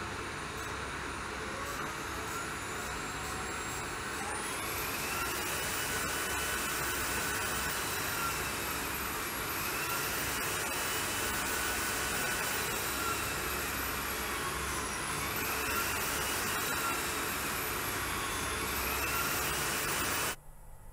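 Mercedes-Benz GLC F-CELL fuel cell system running on a test bench: a steady rushing noise with a high whine that climbs about four seconds in, then sinks and climbs again several times. The sound cuts off suddenly near the end.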